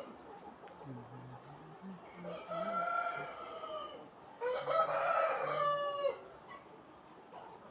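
A rooster crowing twice, each crow lasting one to two seconds, the second louder, with low clucking from chickens underneath.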